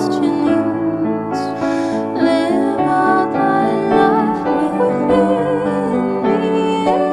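Music: two voices singing a hymn in harmony over piano accompaniment.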